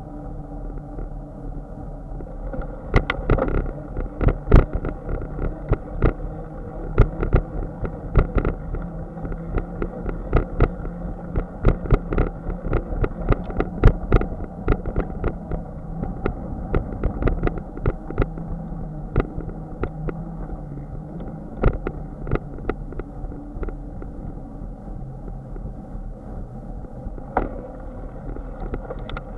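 Bicycle riding along a concrete sidewalk: a steady muffled rumble of wind and tyres, broken by frequent irregular knocks and rattles as the bike jolts over bumps and seams in the pavement. The knocks thin out over the last several seconds.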